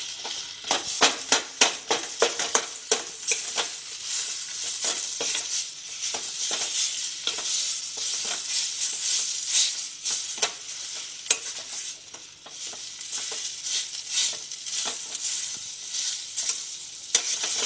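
Steel spatula scraping and knocking against a stainless-steel kadhai as a mashed potato and pea mixture is stirred and roasted in a little oil, with a steady sizzle under the frequent strokes.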